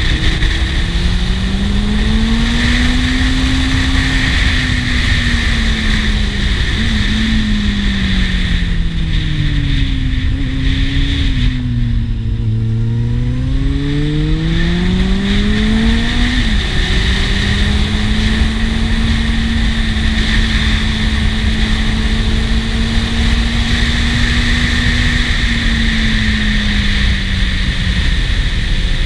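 Kawasaki Z750 S inline-four engine running under way, with steady wind rush over a helmet-mounted camera. The engine pitch rises and falls with the throttle: it sinks slowly to its lowest as the bike slows into a bend, climbs again, drops suddenly at an upshift just past halfway, then holds steady.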